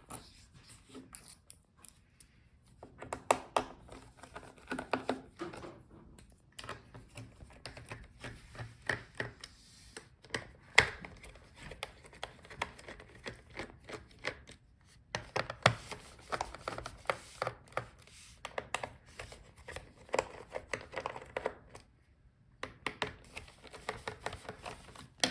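A screwdriver working the bottom-cover screws out of a Lenovo ThinkPad P1 Gen 5 laptop: irregular small clicks and scrapes in spells, with short pauses between them.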